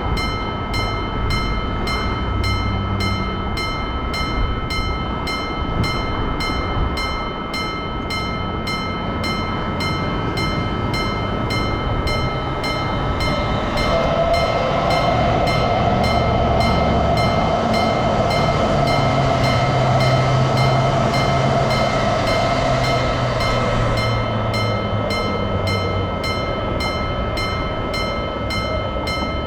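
Japanese level-crossing warning bell ringing 'kan-kan' steadily, about two strikes a second, while a train passes. Its running noise and a steady whine swell up about halfway through and fade again near the end.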